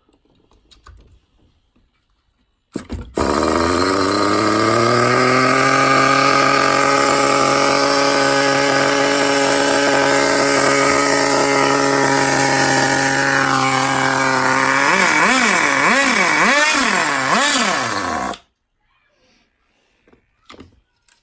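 The small glow-fuel nitro engine of an HPI Nitro Rush RC car catches about three seconds in, its pitch climbing quickly, then runs at a steady high pitch. Near the end it is revved up and down in several quick blips before it cuts out suddenly. The freshly rebuilt, barely run-in engine is running again after years of storage.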